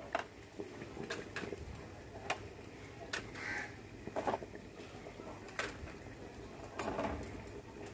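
Scattered light clicks and clinks of steel plates being set down and shifted on a perforated metal steamer rack, irregular and about a second apart.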